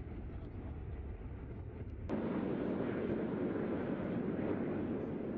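Jet aircraft engine noise, a steady rushing rumble that abruptly becomes louder and fuller about two seconds in.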